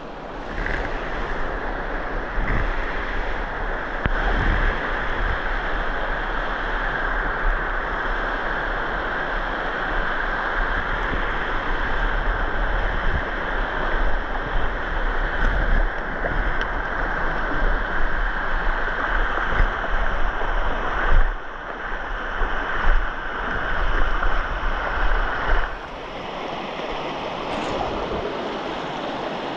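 Mountain stream rushing steadily over rocks, with a low wind rumble on the microphone. About 26 seconds in, the sound gets a little quieter and the rumble fades.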